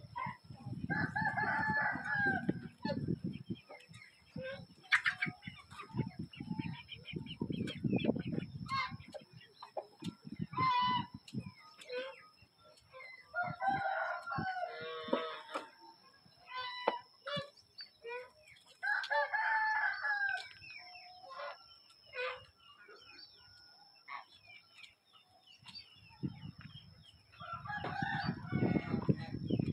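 A rooster crowing four times, each crow about two seconds long, with short clicks scattered in between.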